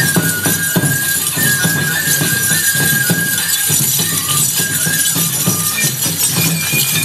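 Enburi festival music: a flute plays a melody of held notes that step up and down over regular drum strikes, with metal jingling and clinking.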